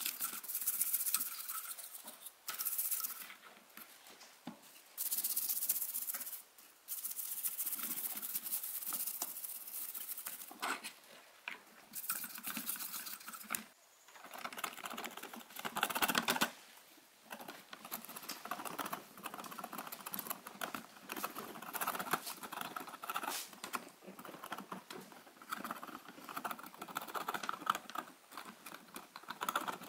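A small brush scrubbing a circuit board in short bursts of strokes. From about halfway, the metal tip of fine tweezers scratches and picks at residue on the solder side of a circuit board, making a dense run of small scraping ticks.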